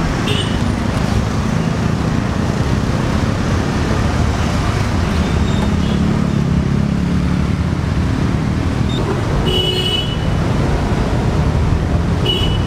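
Steady city street traffic noise, a continuous rumble of passing vehicles, with a brief high-pitched tone about ten seconds in.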